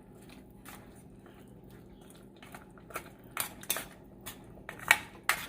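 Kitchen utensils clinking against cookware: a few scattered sharp clinks in the second half, the loudest near the end.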